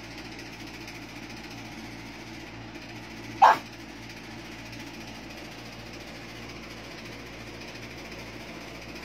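A Boston terrier gives one short bark about three and a half seconds in, over a steady background hum.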